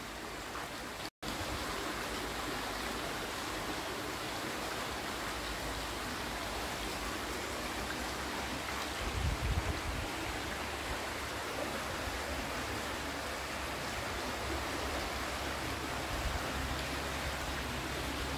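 A natural stream rushing over rocks, giving a steady hiss of flowing water. The sound cuts out for an instant about a second in, and there is a brief low rumble near the middle.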